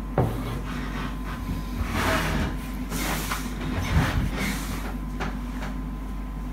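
Handling noise: irregular rustling and scraping with a few soft knocks, including a dull thump about four seconds in, as things are moved about on a wooden table.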